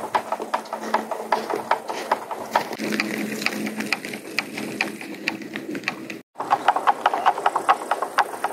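Light rain pattering as a rapid, irregular run of small taps, cutting out briefly about six seconds in.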